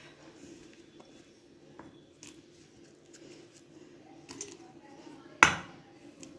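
Green chillies, garlic and ginger dropped by hand into a steel mixer-grinder jar: a few faint light clicks, then one sharp clunk with a short ring about five and a half seconds in.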